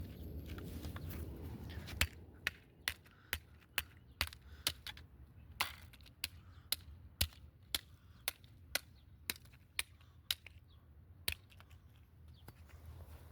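A run of sharp, short clicks or taps, about two a second, over a low hum, starting about two seconds in and stopping near the end.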